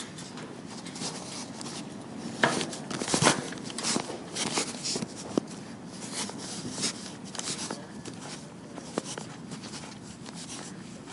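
Footsteps of two people walking together, an irregular patter of steps and scuffs that is louder for a few seconds a little way in.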